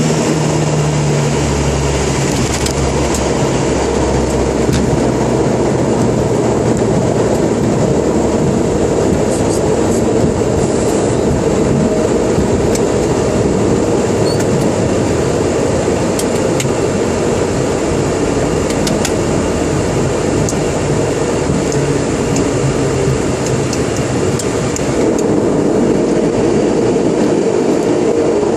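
Steady cabin rumble of a Dash 8-200 twin turboprop rolling down the runway after landing: engine and propeller noise mixed with the rumble of the wheels on the runway surface. A low drone in the first few seconds fades away.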